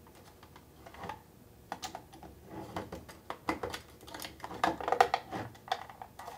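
Small plastic clicks and taps from handling the case of an Ademco 5852 glass break detector and sliding its plastic LED-enable switch back and forth. The clicks come in an uneven scatter from about a second in and grow thicker in the second half.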